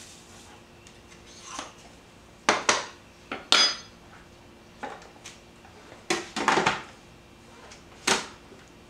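Scattered clinks and clicks of a measuring spoon and a food processor's plastic bowl, lid and feed tube being handled as salt is added to chopped garlic; the loudest is a ringing clink about three and a half seconds in, with a quick run of clicks near two-thirds of the way and one more near the end.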